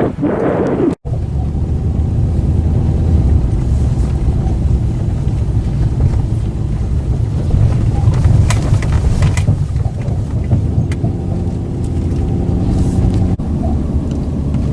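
Vehicle driving, with a steady low rumble of engine and road noise heard from inside the cabin and a few brief rattles around eight to nine seconds in.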